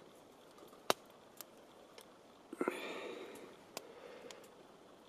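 Quiet handling sounds at a small Firebox camp stove being set up to heat water: a few sharp clicks and a short clatter about two and a half seconds in.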